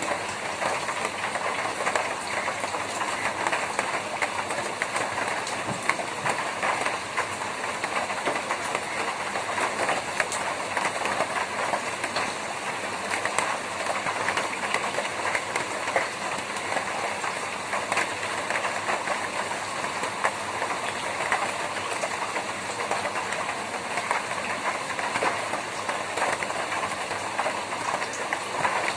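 Rain falling steadily on a tin roof: a dense, even patter of many drops striking the metal.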